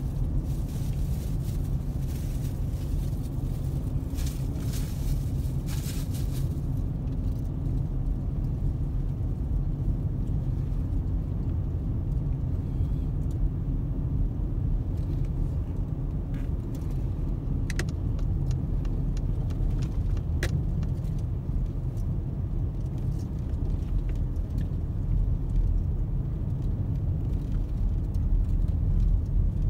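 Moving road vehicle running along a paved road: a steady low engine and road noise, with a brighter hiss in the first several seconds and a couple of sharp clicks past the middle.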